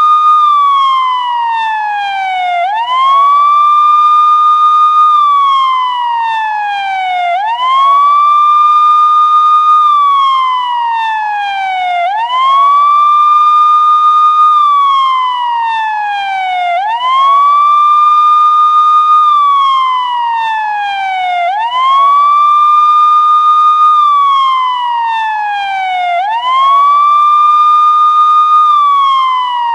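Police car siren sounding in a wail: the tone sweeps up quickly, holds high for about two seconds, then slides steadily down, repeating about every four and a half seconds.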